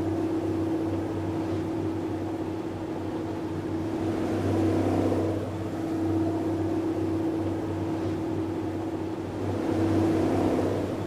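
Tour boat's engine running with a steady hum, heard from on board, under a wash of water and wind noise that swells and eases every few seconds.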